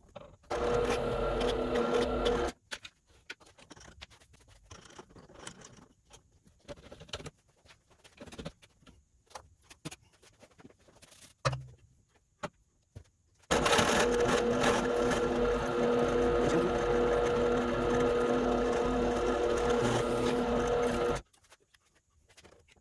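Drill press motor running while a hole for a momentary switch is drilled into an epoxy-resin shift knob: a steady hum for about two seconds, then a stretch of small clicks and handling, then a longer run of about eight seconds that cuts off near the end.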